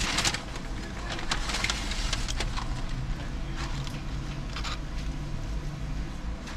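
Low, steady rumble of a car, with several short hissy noises on top.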